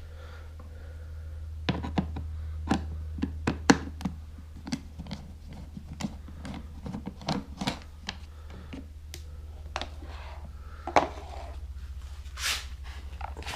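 Irregular clicks and light knocks of the plastic housing of a Honda EU2000i generator being handled, most likely its side maintenance cover being opened, over a steady low hum.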